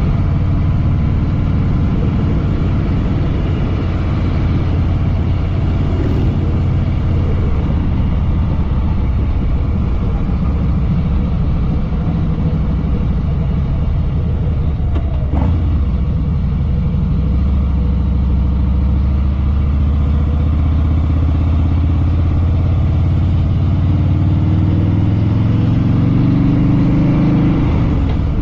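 Harley-Davidson Fat Boy Lo V-twin engine running on the road with a loud, steady rumble. In the second half its pitch climbs steadily as the bike accelerates.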